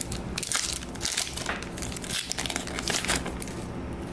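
Wrapper of a Topps Star Wars Card Trader pack crinkling and crackling as it is handled and opened by hand; the crinkling dies down about three and a half seconds in.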